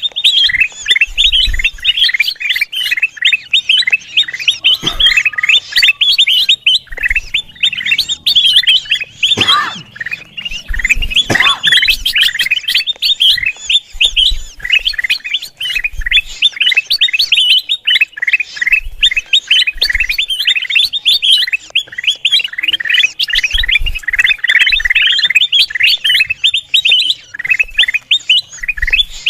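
A kutilang emas bulbul chattering noisily: a dense, unbroken run of rapid, high, short falling chirps, many to the second.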